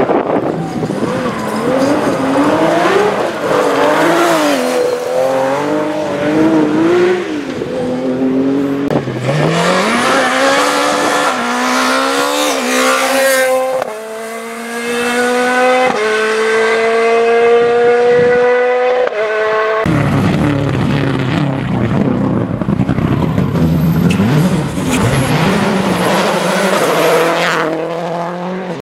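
Rally car engines running hard: revs rise and fall with the throttle, then climb through a run of upshifts. Partway through, the sound changes suddenly to a rougher, noisier engine note that lasts until near the end.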